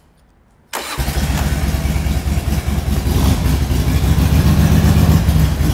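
Harley-Davidson Sportster V-twin engine on a hardtail chopper being started. It fires under a second in, catches almost at once and runs at a loud, steady idle.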